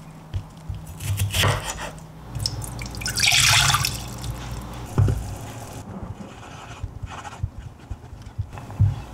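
Water poured from a jug into a saucepan: a splashing pour lasting about a second, around three seconds in. Scattered light kitchen clicks and knocks around it, with a sharp knock about five seconds in.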